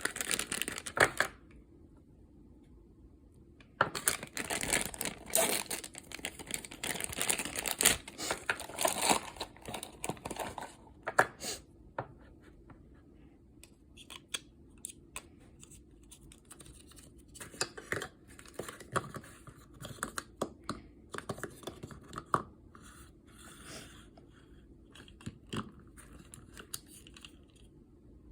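Wrapping of a Pop Mart blind box torn open and crinkled by hand. It comes in dense bursts for the first ten seconds or so, with a short pause about a second in, then gives way to lighter scattered rustles and clicks as the contents are handled.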